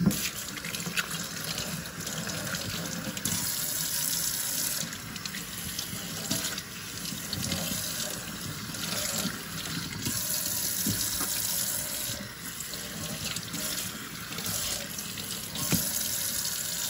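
Kitchen tap running into a stainless steel sink, the water splashing over fish fillets as they are rinsed by hand, its sound shifting as the hands move through the stream.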